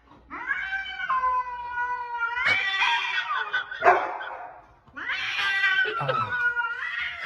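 A cat yowling in long, drawn-out cries, one after another, with a short break about two-thirds of the way through.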